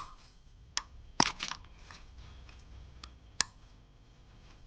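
Sharp plastic clicks and rattles of engine wiring-harness connectors being unclipped and handled, a handful of separate clicks with a quick cluster about a second in.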